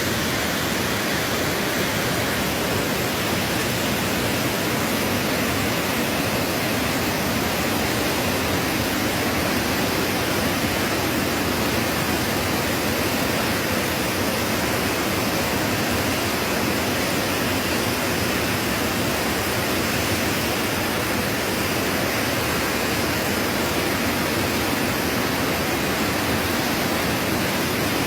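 Steady, unbroken rushing of fast-flowing floodwater.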